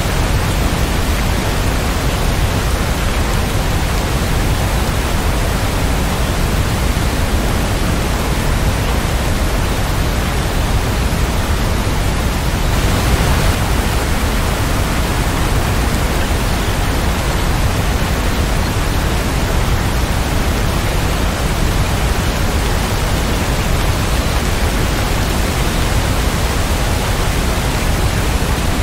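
Steady rain, an even unbroken hiss with no single drops or thunder standing out; it swells briefly about thirteen seconds in.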